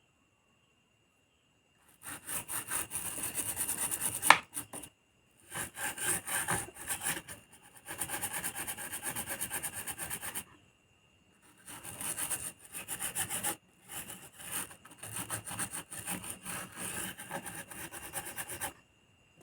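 Freshly soldered joints on a home theater amplifier's circuit board being scrubbed clean with thinner: rapid back-and-forth rubbing strokes in four spells with short pauses, and one sharp click about four seconds in.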